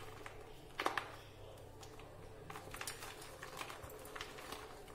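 Faint crackling and clicking of crisp jaggery-coated gram-flour sev being tossed and broken apart by hand in a steel plate, the pieces knocking against each other and the metal, with a slightly louder click about a second in. The jaggery coating has set and the sev is coming loose into separate pieces.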